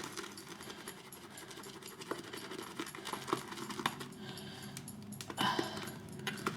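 Badger-hair shaving brush whisking soap into lather in a bowl: soft swishing with many quick light clicks as the brush knocks and scrapes against the bowl.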